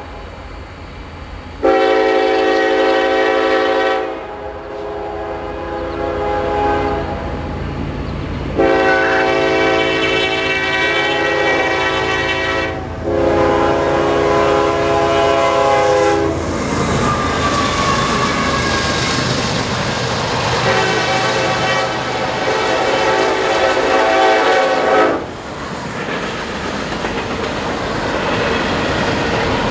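A diesel freight locomotive's multi-chime air horn sounds four blasts as the train approaches, the crossing signal. About halfway through the locomotive passes close by with a loud rumble, followed by double-stack intermodal cars rolling past with clickety-clack over the rail joints.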